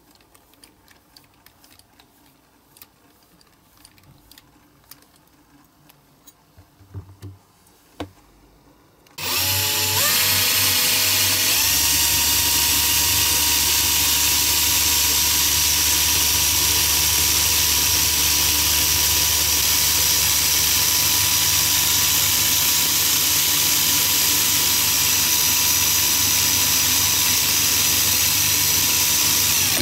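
Cordless drill switched on about nine seconds in, its whine rising in pitch as it spins up and then running steadily at high speed, turning a brass-plated nail in its chuck as it is shaped into a model axle. Before it, a few soft handling clicks.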